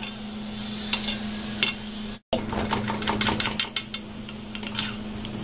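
Gulab jamun dough balls sizzling as they deep-fry in hot oil, over a steady low hum. A steel slotted spoon clinks and scrapes against the metal pan in a quick run of strikes from about two and a half to four seconds in, as the balls are turned and lifted out.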